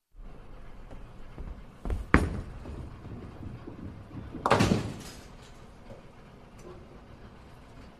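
Bowling ball rolling down a lane with a low rumble, a sharp crack about two seconds in, then a louder clattering crash of pins about four and a half seconds in: a strike. The rumble fades out after the crash.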